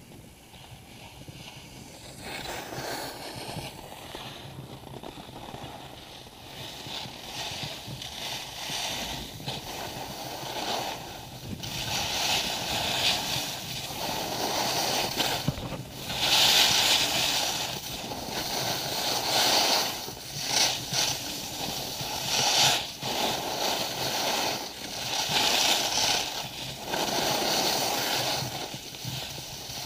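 Skis carving turns on packed snow: a scraping hiss that swells with each turn, about every second and a half to two seconds, louder in the second half.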